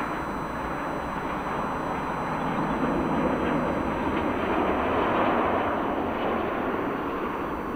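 Jet airliner passing on approach to land: a broad engine rumble that swells to a peak about halfway through, then slowly eases.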